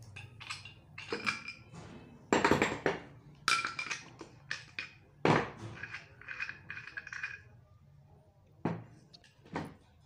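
Steel gear puller being taken apart by hand: a series of metal clinks, taps and clanks as its nut, screw and adapter are handled and set down, some ringing briefly. The loudest knocks come a little over two seconds in and about five seconds in.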